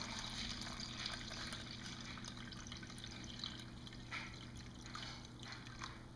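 Water being poured into a plastic tub, trickling and tapering off. A few separate drips follow in the second half, from the test rig the builder calls dripping a little because it is roughly put together.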